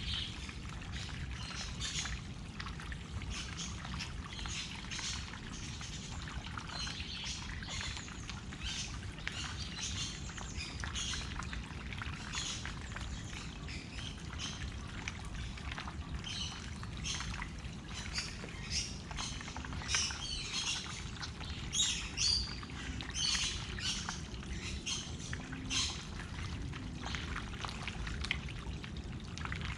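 Birds chirping in short, scattered calls over the steady sound of running or trickling water.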